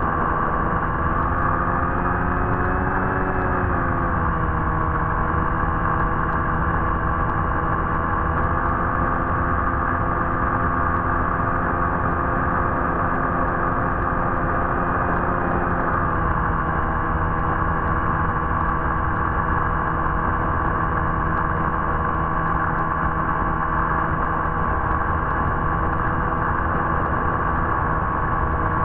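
Steady whine of an FPV model aircraft's electric motor, with a slight drop in pitch a few seconds in and another small change about halfway through as the throttle shifts.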